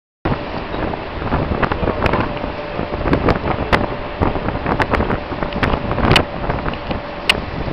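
Wind buffeting the microphone on a ship at sea, a loud rushing noise with irregular crackling gusts, over a faint steady hum.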